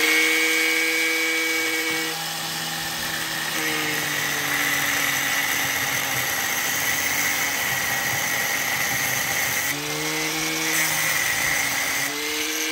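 Handheld angle grinder with a cut-off wheel cutting through a steel pin held in a vise: the motor's whine drops in pitch under load and gives way to a steady grinding hiss, frees up briefly about ten seconds in, and begins to wind down at the very end.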